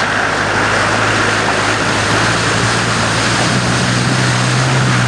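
Jeep engine running while driving through floodwater, over a steady rush of water. The engine pitch rises a little about two to three seconds in.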